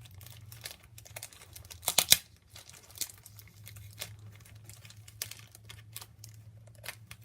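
Paper packaging being pulled open by hand, crinkling and crackling in irregular bursts, with the loudest crackles about two seconds in.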